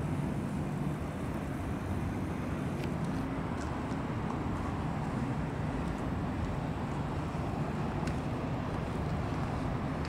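Steady low rumble of city traffic carrying across the river.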